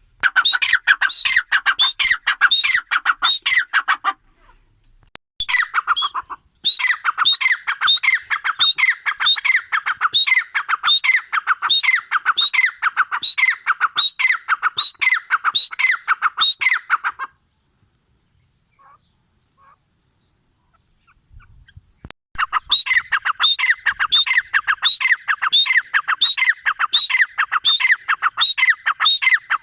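Grey francolin calling: a fast run of loud, shrill repeated notes. It breaks off briefly about four seconds in, and again for several seconds after about seventeen seconds, before starting up again.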